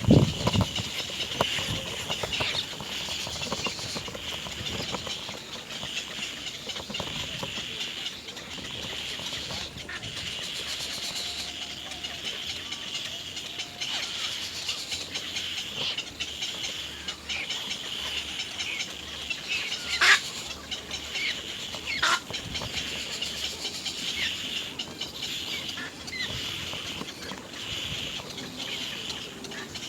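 Birds calling at a nest over a steady high-pitched chirring, with a loud knock at the start and sharp clicks about 20 and 22 seconds in.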